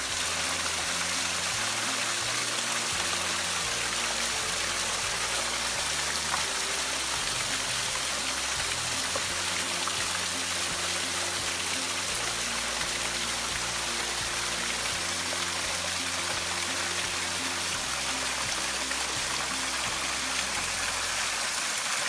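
Cascading waterfall: creek water spilling steadily over tiered rock ledges in a constant rushing splash, with background music underneath.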